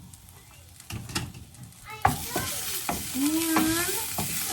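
Chopped onions sautéing in olive oil in a pan, sizzling as they are stirred. After a couple of knocks the sizzle starts loud about two seconds in.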